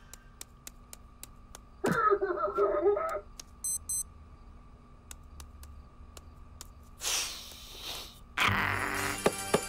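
Cartoon sound effects: light ticks like tiptoeing steps over a faint steady hum, with a short wordless cartoon voice about two seconds in. A brief high beeping comes around four seconds, and a noisy rush near the end swells louder in the last second.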